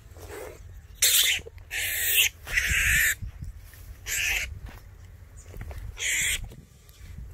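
A snake hissing in short sharp bursts, five in all, the longest lasting about half a second, as it defends itself while being bitten by a mongoose.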